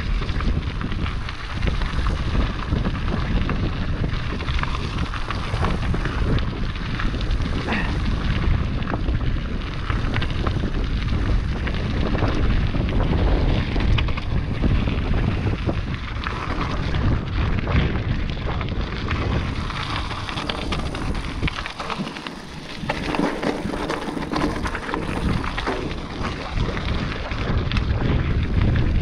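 Wind buffeting the microphone on a fast mountain-bike descent, mixed with the rattle and crunch of the bike over rocks and gravel. The wind rumble eases briefly about two-thirds of the way through.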